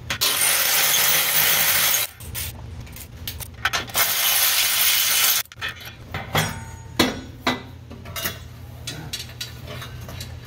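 An air tool runs in two loud bursts, one about two seconds long at the start and one of about a second and a half near the middle, as bolts are worked on the transmission. Between and after the bursts come irregular ratcheting clicks and metal clinks of hand tools, over a steady low hum.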